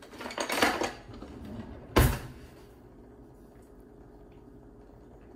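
Quick scraping shakes as ground pepper is shaken from a small steel cup over a bowl, then a single sharp knock about two seconds in.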